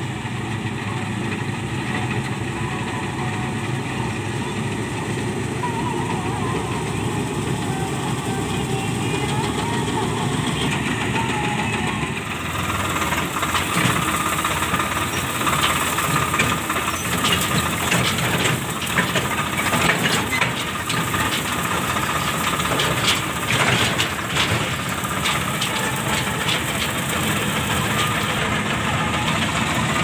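Malkit combine harvester running steadily while cutting wheat. About twelve seconds in the sound switches to a tractor engine running under the driver's seat, with many short rattles and knocks, and shortly before the end it changes back to the combine.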